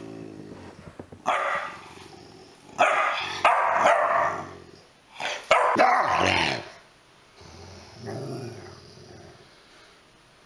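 Rottweilers barking and growling in four loud, rough bursts, then a fainter one. An adult dog is snapping at a frisky puppy, warning it off.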